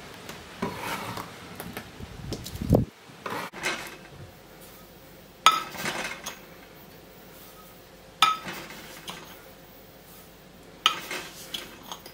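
Clatter of a stainless steel pot being handled on the stove, then a metal measuring cup clinking against the pot's rim three times, each clink ringing briefly, with sugar poured into the pot.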